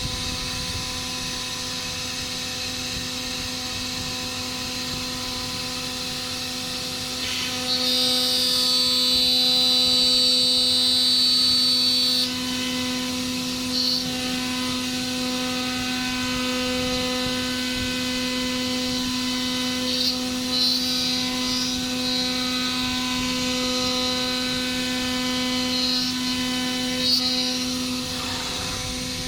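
A CNC machine's spindle running with a steady high whine. It gets louder and brighter while cutting for about four seconds starting around 8 seconds in, with a few short cutting bursts later on.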